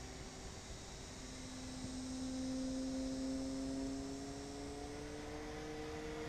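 Electric motor and propeller of a TechOne Air Titan RC plane in flight, a steady tone that slowly rises in pitch and grows a little louder from about two seconds in.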